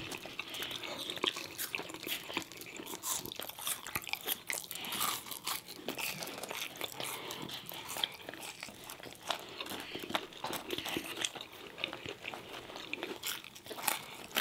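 Two people chewing and crunching french fries and apple slices, a steady run of small wet clicks and crisp crunches.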